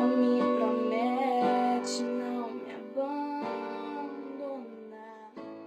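Music: plucked acoustic guitar chords ringing out, fading away as the song ends.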